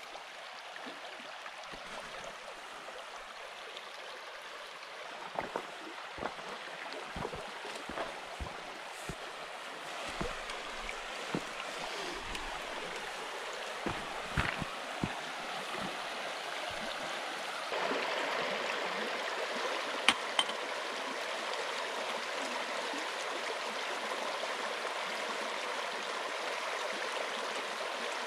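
Creek water running over rocks in a shallow riffle, a steady rushing that grows louder and steps up about two-thirds of the way through. Scattered short knocks and thumps sound over it in the first half, with a sharper pair of clicks a little later.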